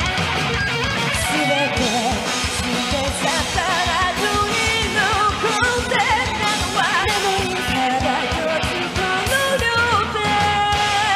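Live hard rock band playing: a female lead vocalist sings with wavering vibrato over distorted electric guitar, bass guitar and drums.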